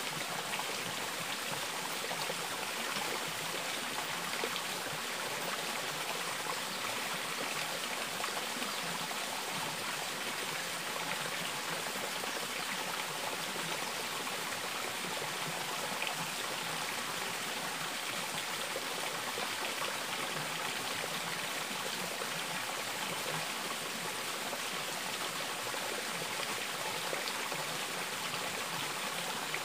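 Water running steadily over rocks, an even trickling rush with no breaks.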